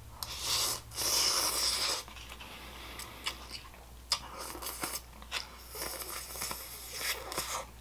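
Slurping instant cup noodles off a fork, with chewing in between: two long slurps in the first two seconds, a few short clicks and smacks, and another slurp near the end.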